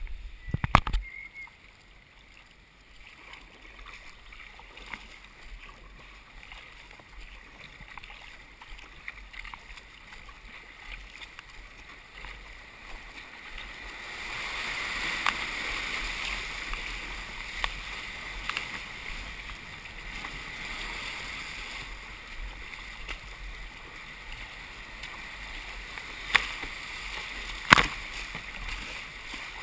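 Kayak paddling heard from a helmet camera. Light paddle strokes and lapping water give way, about halfway through, to the steady rush of whitewater as the boat enters the rapids. There are loud knocks at the very start and two sharp knocks near the end.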